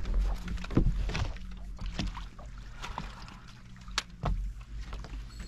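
Sound on a small fishing boat while a fish is played to the net: a steady low hum and wind rumble on the microphone, with scattered sharp clicks and knocks from gear and movement on the boat.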